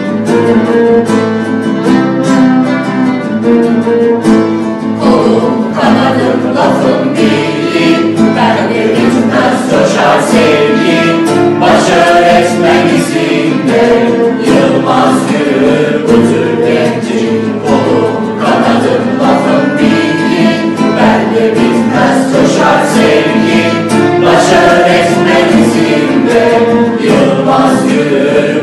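A mixed choir of men and women singing a song together, accompanied by violin and acoustic guitar.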